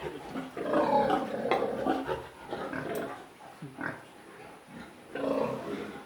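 Pigs vocalizing in irregular bursts, loudest from about half a second to two and a half seconds in and again about five seconds in.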